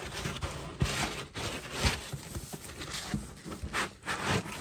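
Foam packing insert being worked loose in a cardboard shipping box: irregular rubbing and scraping of foam against cardboard, with a few soft knocks.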